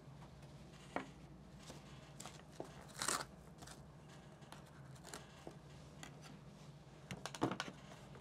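Faint handling noises as kit parts are taken out of the box and set down on a desk: scattered light clicks and taps, a brief rustle about three seconds in, and a quick cluster of taps near the end, over a low steady hum.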